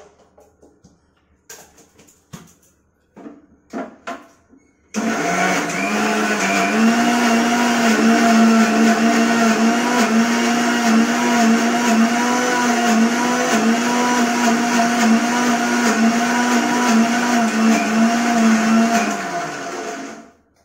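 Electric mixer grinder (mixie) grinding garlic, green chillies and khosla into a paste: a few clicks as the jar is set in place, then about five seconds in the motor starts with a steady whine that runs down and stops near the end.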